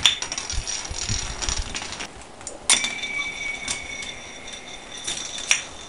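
Toy spinning top spinning on the floor with a thin, steady metallic ringing whir. About three seconds in it is launched again with a sharp clink and rings on.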